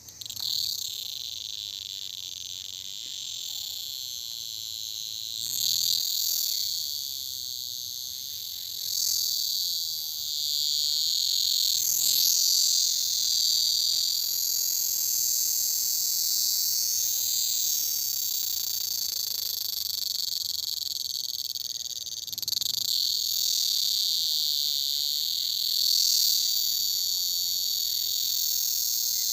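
Dense chorus of crickets: a shrill, high-pitched trilling that swells louder several times.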